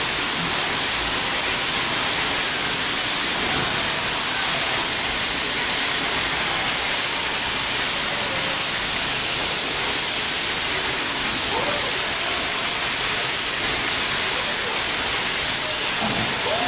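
Steady rushing hiss of air or machinery, strongest in the high range and unchanging throughout.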